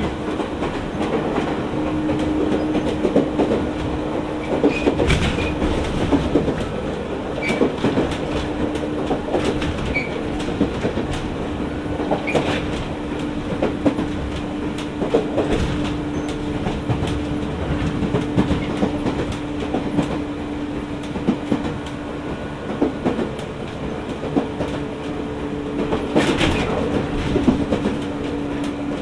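Jomo Electric Railway 700 series electric train (ex-Keio 3000 series) running between stations: a steady hum with scattered clicks of the wheels over the track and a few short high squeals. A louder rush lasting about a second comes near the end.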